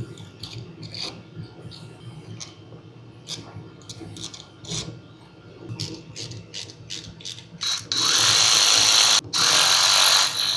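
Light metal clicks and taps of small starter-motor parts being handled and fitted. Near the end comes a loud rasping noise lasting about two and a half seconds, broken once by a brief pause.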